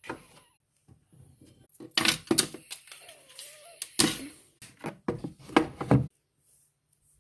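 Fidget toys being handled and set down: irregular clattering knocks and rustling, loudest around two, four and six seconds in, then stopping abruptly.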